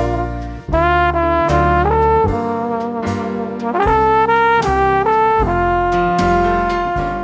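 Background music: a brass-led tune of short chords that step up and down, settling about five and a half seconds in on one long held chord.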